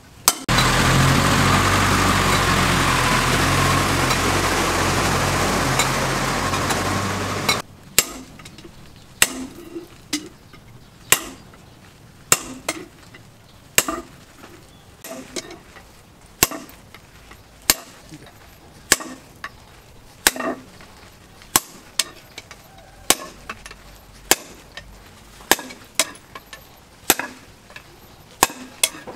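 Sledgehammer and hand-hammer blows on a red-hot car axle resting on an anvil. The strikes come about one or two a second, often in close pairs, starting about eight seconds in. Before them a loud, steady rushing noise runs for about seven seconds and cuts off suddenly.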